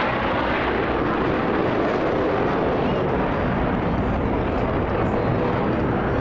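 Steady jet engine noise from Blue Angels F/A-18 Super Hornet fighter jets flying over the airfield.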